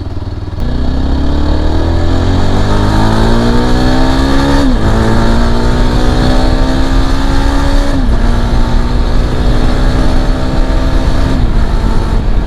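Yezdi Adventure's 334cc single-cylinder engine pulling hard under full acceleration, its pitch climbing and dropping at two upshifts, about five and eight seconds in. The throttle eases off near the end.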